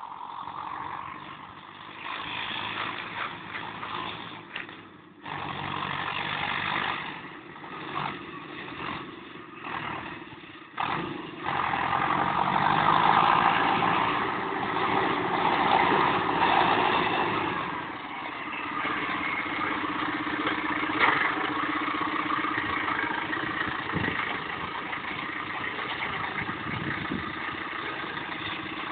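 Case IH JXU 95 tractor's diesel engine running as the tractor crosses a stubble field and pushes round bales with its front loader. It is uneven at first, grows louder about a third of the way in as the tractor comes nearer, then settles into a steady hum.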